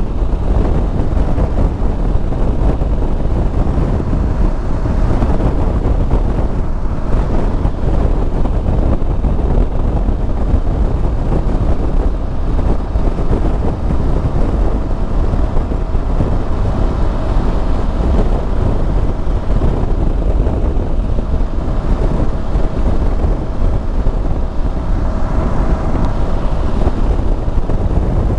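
Steady wind buffeting the microphone over the drone of a Yamaha Super Ténéré's parallel-twin engine and tyres, cruising at highway speed.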